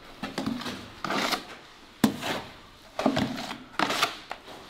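Wet interior plaster being scooped and spread by hand with a steel smoothing trowel: a series of short scraping strokes, about one a second.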